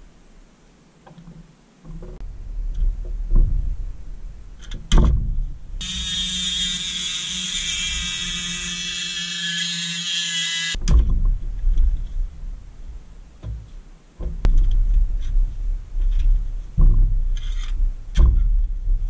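Flex-shaft rotary tool grinding the end of a metal wheel axle on a vintage Tonka toy forklift: a steady high whine from about 6 s to 11 s in, with knocks and clatter of the parts being handled before and after.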